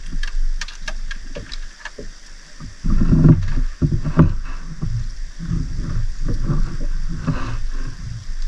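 Water sloshing and knocking against a small fishing boat, with a few light clicks at first; the low sloshing noise grows louder about three seconds in.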